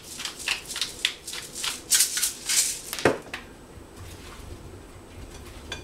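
Pepper mill being twisted over the bowl, a run of short gritty grinding crunches about three a second, then a single knock about three seconds in. After that only faint stirring of oiled potatoes in a glass bowl.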